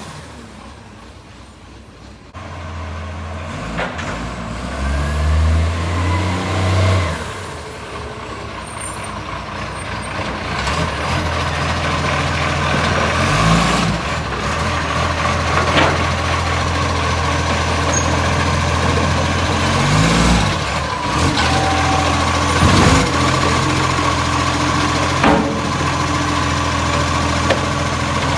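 Garbage truck's diesel engine running with a blowing exhaust leak. It comes up sharply about two seconds in and swells a couple of times around five to seven seconds, then runs steadily, with a few short sharp hisses or knocks along the way.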